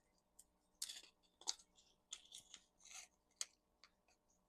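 Faint, scattered clicks and light scrapes of small parts of a micro RC crawler axle being handled as its differential cover is picked up and set in place, about half a dozen brief ticks over a few seconds.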